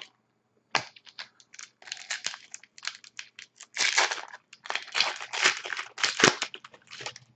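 Wrapper of a hockey trading card pack being torn open and crinkled by hand: a run of irregular crinkling, tearing rustles.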